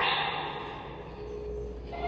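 A lull in a fire alarm voice-evacuation cycle: the preceding sound fades out over about a second, leaving a faint steady tone and low hum before the next signal.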